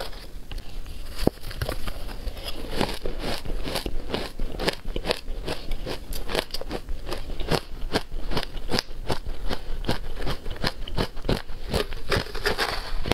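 Shaved ice being chewed close to the microphone: a steady run of sharp, crisp crunches, several a second. Near the end comes a softer scrape as the spoon digs into the ice in the bowl.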